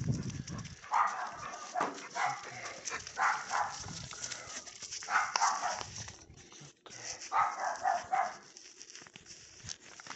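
Dog barking in several short bursts, a second or two apart.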